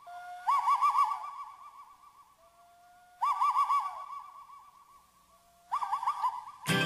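A bird-like call, repeated three times a few seconds apart: each is a short lower note jumping up into a fast warbling trill that fades out. Guitar music starts right at the end.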